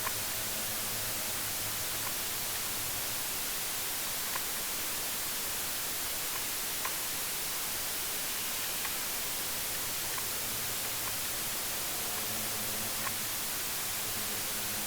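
Steady white-noise static hiss, strongest in the treble, with faint short ticks every second or two and a faint low hum that swells and fades now and then.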